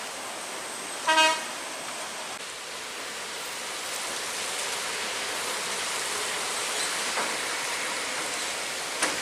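A vehicle horn toots once, briefly, about a second in. It is followed by a steady hiss of rain and tyres on the wet road as traffic passes, growing slightly louder, with a short knock near the end.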